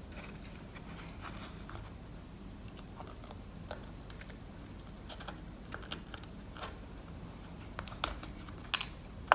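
Light, scattered clicks and taps of small metal parts as an Assa Abloy Arrow lock cylinder is handled and taken apart, with a few sharper clicks near the end.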